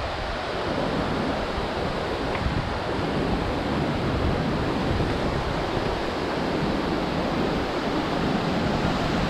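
Steady rush of a large waterfall, Tumpak Sewu, with water falling all around, mixed with a low rumble of wind buffeting the microphone.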